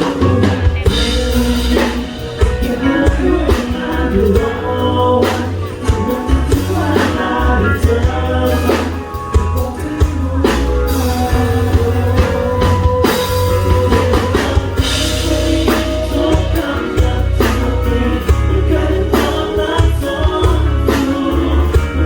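A live band playing a pop ballad through a PA: drum kit, a heavy bass line and melody, with singing.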